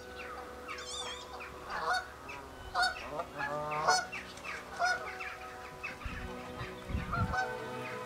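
Waterbirds calling: repeated honking, goose-like calls with higher wavering whistled calls among them.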